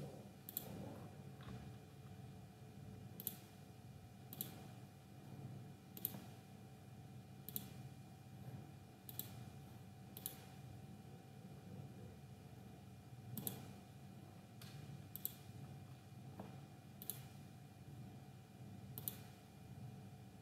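Computer mouse clicking: about eleven single clicks spaced unevenly, one to three seconds apart, over a faint steady hum.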